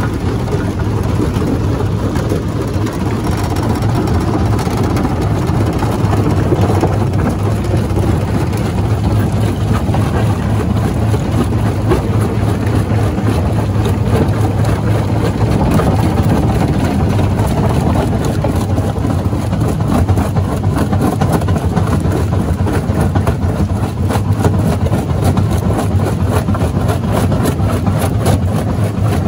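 Jaw rock crusher running: a steady, loud, low mechanical rumble.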